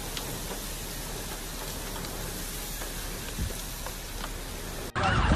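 Torrential rain pouring down, a steady hiss. About five seconds in it cuts abruptly to a wailing emergency-vehicle siren.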